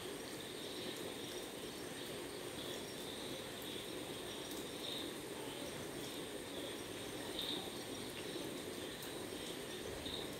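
Faint steady outdoor background ambience, with soft high chirps rising out of it now and then.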